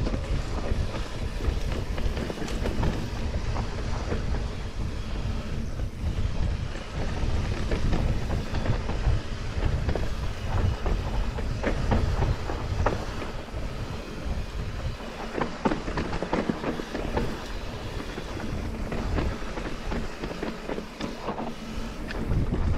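Fezzari La Sal Peak 2.0 full-suspension mountain bike descending a dirt trail at speed: tyres rolling over dirt and gravel and the bike rattling and clicking over bumps, over a steady low rumble of wind on the microphone.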